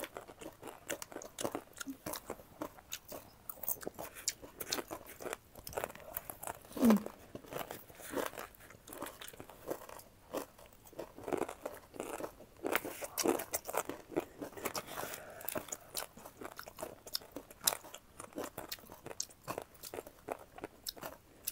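Close-up crunchy chewing of puffed-rice chatpate mixed with salad, a steady run of irregular crisp crunches. About seven seconds in comes one short, louder sound with a pitch to it.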